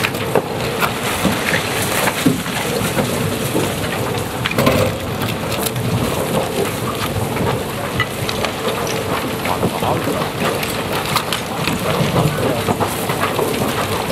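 Herrenknecht tunnel boring machine's cutting wheel grinding through the last rock and the shotcrete wall of the portal as it is about to break through: a steady rumble with a continual clatter of crumbling concrete and falling fragments.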